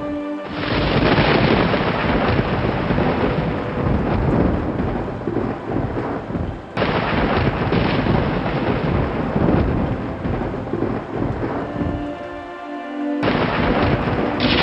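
Thunder rumbling over heavy rain, in spliced stretches that break off and start again abruptly about half a second in, near the middle, and near the end. Soft, sustained music tones sit faintly beneath it and show through in the brief gaps.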